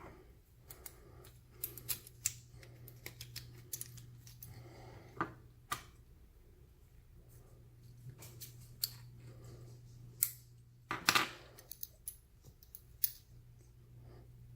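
Scattered small metallic clicks and scrapes as an Abus 80/45 padlock is worked with its key and a small screwdriver to push down the core-retaining detent, with a louder cluster of clicks about eleven seconds in. A low steady hum runs underneath.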